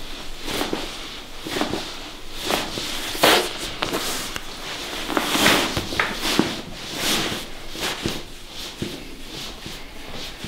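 Hands rubbing and pressing on a patient's body and clothing during chiropractic work: a string of short rustling strokes, with one sharp crack about three seconds in.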